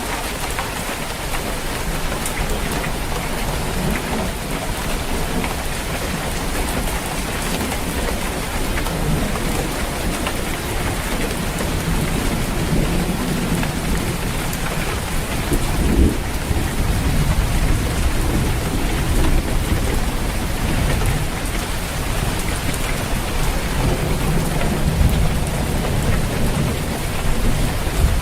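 Steady rain on a roof, with rolling thunder rumbling low beneath it, strongest about halfway through and swelling again near the end.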